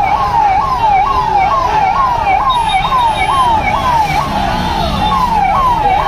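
Police vehicle siren wailing in fast, repeated up-and-down sweeps, about two a second.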